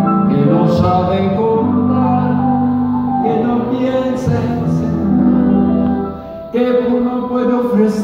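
A slow ballad played live by piano and band, with long held chords; the music dips briefly about six seconds in, then comes back in full.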